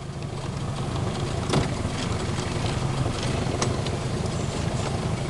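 Small outboard motor pushing an aluminium jon boat at low speed, a steady low drone, with a sharp click about a second and a half in.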